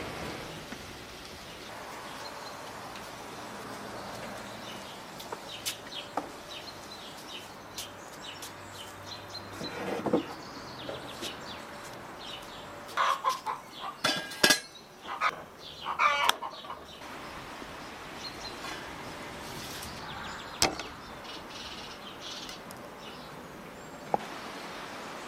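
Minced beef sizzling in a pan, with clicks and scrapes as a wooden spoon stirs it. A hen clucks and cackles several times just past the middle; this is the loudest sound.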